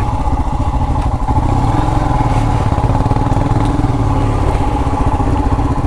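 Royal Enfield Himalayan 411's single-cylinder engine running steadily at an even engine speed, its firing pulses plainly heard.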